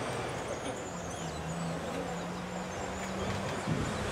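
Outdoor ambience: small birds chirping high over a low, steady hum.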